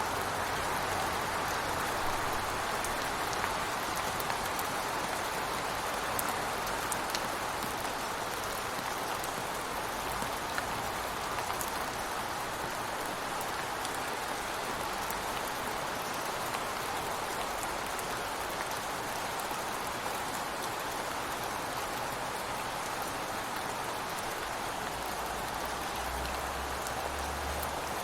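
Steady rain falling, heard from beside a window, an even hiss with scattered small drop ticks.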